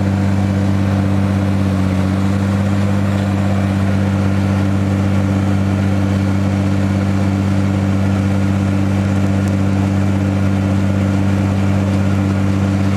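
Mercedes OM642 3.0 L V6 diesel in a Jeep Grand Cherokee running steadily at raised revs during a forced diesel particulate filter regeneration, heard close to the hot exhaust pipe. An even, unchanging drone.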